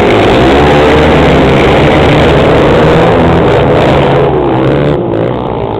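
A pack of dirt-track racing motorcycles running hard around the oval, several engines revving and overlapping at once. The sound eases off slightly about five seconds in as the pack moves away.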